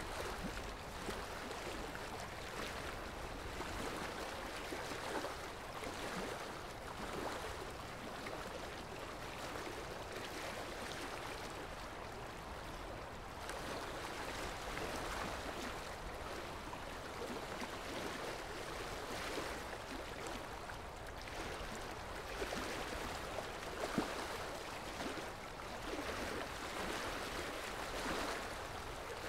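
Steady sound of running water that swells and eases every few seconds.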